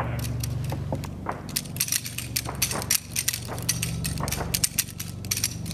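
Many Beretta M9 9 mm pistols firing at once along a firing line: a rapid, irregular string of overlapping shots beginning about half a second in, over a steady low hum.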